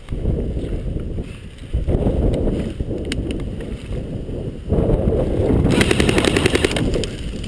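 Low rumble of wind and movement on the microphone, then, a little under six seconds in, a rapid burst of airsoft gunfire, many quick shots lasting under two seconds.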